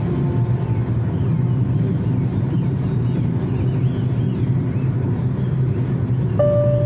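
Steady low rumble of a car driving at freeway speed, heard from inside the cabin. A held music note comes in near the end.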